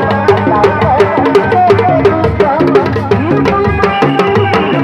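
Reak procession music: several dogdog drums, single-headed and rattan-laced, beaten by hand in a fast, steady interlocking rhythm. A high melody line with bending notes plays over the drumming.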